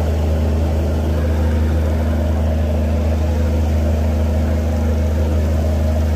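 Riverboat's engine running steadily on board: a deep, even hum with a rushing noise over it.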